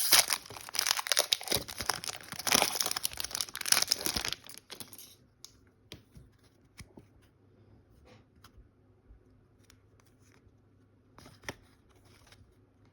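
Wrapper of a Panini Donruss basketball trading card pack being torn open and crinkled, loud and crackly for about four seconds, then faint scattered ticks and rustles as the cards are handled.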